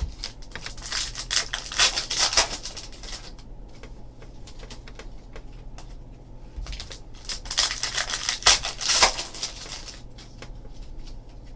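Crinkling and rustling of trading card pack wrappers and cards being handled, in two spells of about three seconds each.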